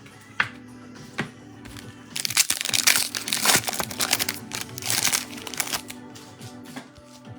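Trading-card pack wrapper being torn open and crinkled, a dense crackling from about two seconds in that fades out about six seconds in, over steady background music. A couple of single clicks come before it.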